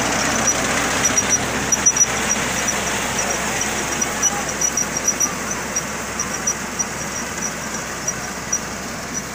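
Kubota combine harvester running steadily as it works, a dense mechanical din with a fast high ticking running through it, gradually getting quieter.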